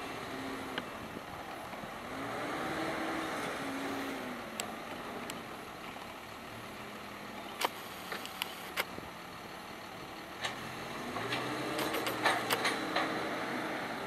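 Claas Scorpion telehandler's diesel engine running, its speed rising and falling twice as it works, with a series of sharp clicks and knocks in the second half, thickest near the end.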